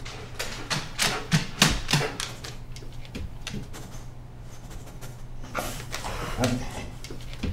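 A Dalmatian's claws clicking and tapping on a wooden floor as it walks and turns, in irregular clusters. The clicks are loudest in the first two seconds and come again around six seconds in.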